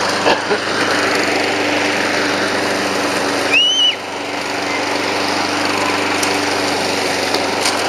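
Honda pull-start lawn mower engine running steadily, with a brief high squeak about three and a half seconds in.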